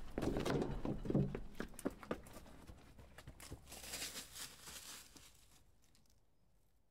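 Footsteps crunching on a gravelly dirt trail, irregular and fading out about five seconds in.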